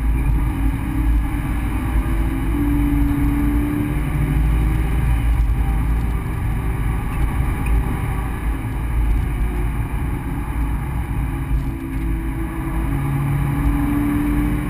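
Subaru BRZ's flat-four engine pulling hard through its automatic gearbox, heard from inside the cabin over heavy road and wind rumble. The engine note climbs a little twice, a few seconds in and again near the end.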